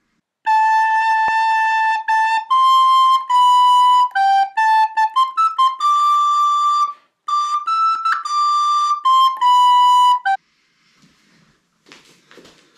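A recorder playing a short tune, one note at a time, mostly held notes with brief breaks between phrases. It stops about ten seconds in, and faint rustling and handling sounds follow.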